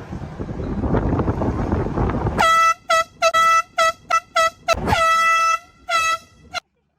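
Handheld canned air horn blasting a single loud, steady note in a rapid series of about nine bursts, mostly short with a couple of longer ones, starting about two and a half seconds in. Before it there is a low rushing noise.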